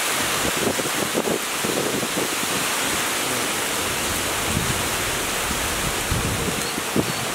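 Strong wind rushing steadily through the trees, with irregular low rumbles of wind buffeting the microphone.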